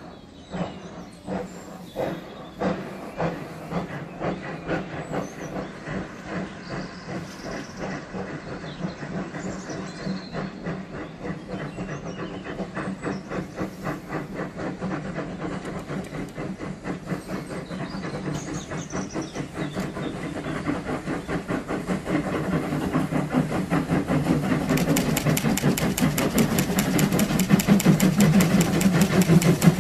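Steam locomotive pulling away. Its exhaust beats start slow and quicken steadily as it gathers speed, with hissing steam, getting louder toward the end.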